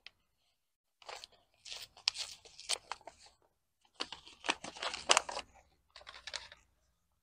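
Paper seed packet being torn open and crinkled by hand, in three bouts of tearing and rustling.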